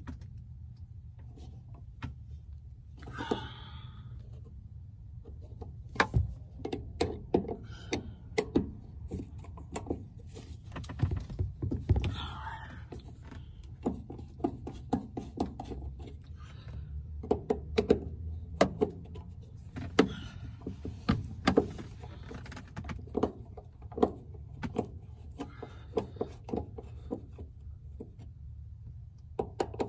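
Phillips screwdriver loosening the screws around a car's in-tank fuel pump: scattered sharp clicks, taps and scrapes of the tool against the screws, over a steady low rumble.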